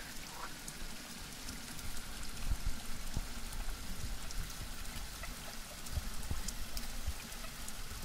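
Small stream splashing steadily as it runs down over a bed of stones.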